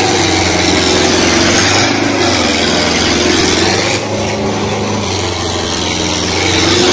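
Tractor engine running hard at high revs under heavy load while its rear wheels spin in loose dirt; the sound is loud and steady, with a brief dip about four seconds in.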